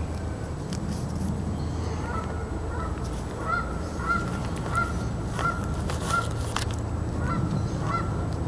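Waterfowl calling with a run of short, evenly spaced honks, over a steady low rumble.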